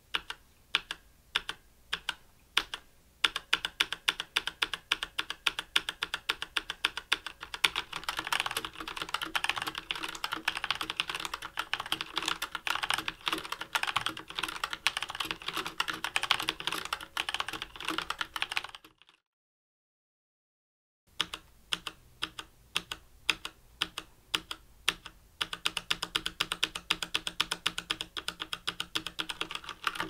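Typing on a Tecware Phantom RGB mechanical keyboard with Outemu red linear switches: a few separate keystrokes at first, then fast, continuous typing. It cuts off suddenly into about two seconds of dead silence, after which typing resumes on the Outemu brown tactile-switch version, again starting with separate keystrokes before speeding up.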